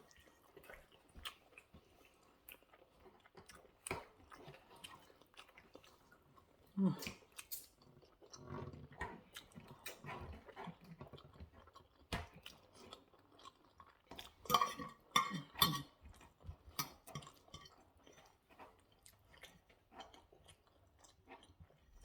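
Close-miked chewing of spaghetti bolognese: soft, wet mouth smacks and clicks, with a brief run of sharper clicks about two-thirds of the way in.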